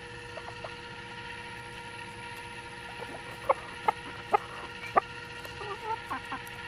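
Backyard hens clucking as they crowd in to feed. There are four short, sharp clucks roughly half a second apart in the middle, then softer, lower clucks near the end.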